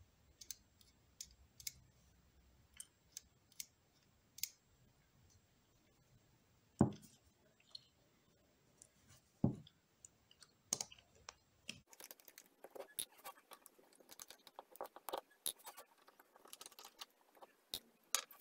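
Faint small clicks and taps from handling a Pentacon 29mm camera lens, with two louder knocks at about 7 and 9.5 seconds. From about 12 seconds on, a quick run of small clicks and scrapes follows as a fine screwdriver works at a screw on the lens's rear mount.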